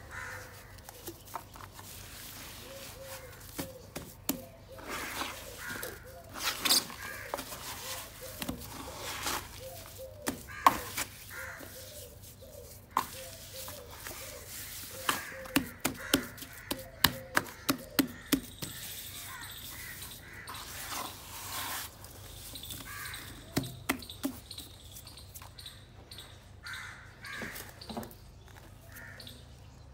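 A hand squeezing and kneading wet, crumbly soil in a plastic bucket: irregular squelching and crackling, with a run of sharp clicks at about three a second midway.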